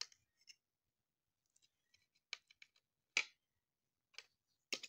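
A few faint, separate clicks and taps of a metal fork against a plate while it picks apart a slice of baked bread pizza, the loudest about three seconds in and another near the end.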